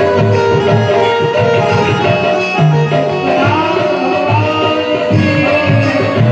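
Indian devotional music with tabla drumming under held melodic notes, with a gliding melody line about halfway through.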